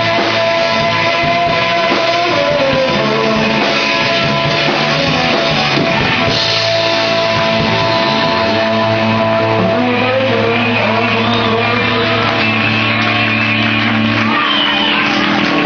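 Live rock band playing a Britpop song: electric guitar under a sung vocal. A long held low note cuts out about 14 seconds in.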